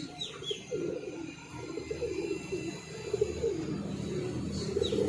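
Pigeons cooing in repeated low, warbling phrases, with a short high bird chirp just after the start and another near the end.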